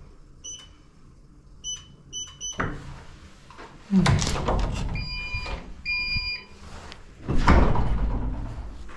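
Electronic beeping: four quick short beeps, then two longer beeps about a second apart. Two loud clunks, about three seconds apart, come in between and after them.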